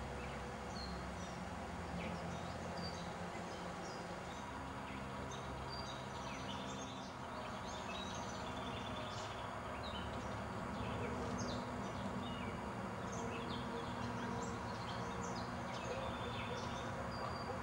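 Several birds chirping and whistling in woodland, many short calls scattered throughout, over a steady low hum.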